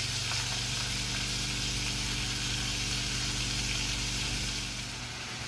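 Food sizzling in a hot pan with a steady hiss that eases slightly near the end, over a steady low hum.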